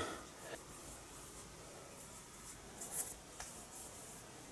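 Faint scraping and rubbing of metal parts being slid over a surface, with a short louder scrape about three seconds in.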